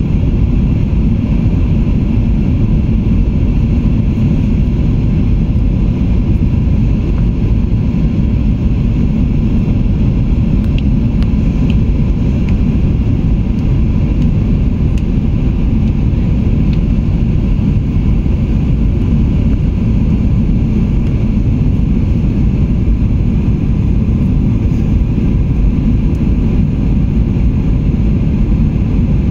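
Airliner in flight heard from inside: engines and rushing air make a steady low rumble, with faint steady tones above it.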